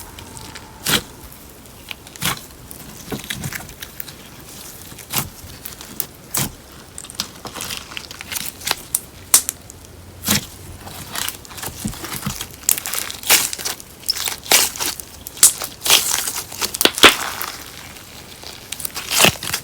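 Slime being squished and mixed with crumbled paper clay by hand, giving irregular sharp crackles and pops that come thickest in the later part.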